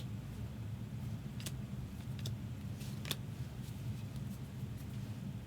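Trading cards being handled and sorted, a few light clicks and snaps of card stock, over a steady low hum.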